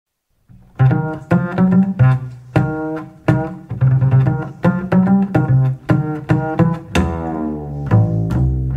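Jazz double bass played pizzicato, starting about half a second in with a solo line of quick, separately plucked notes.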